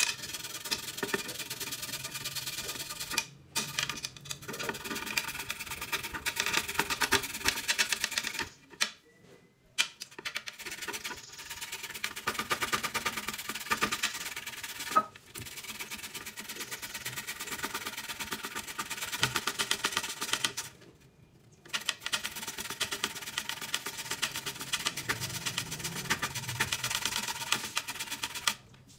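Fresh ginger root being grated on a metal box grater: fast, repeated scraping strokes, with a few brief pauses.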